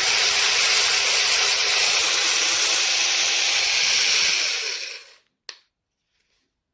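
Battery-powered 4-inch mini chainsaw's electric motor and chain running free with no load, a steady high whir, for about four and a half seconds, then winding down to a stop; a single click follows.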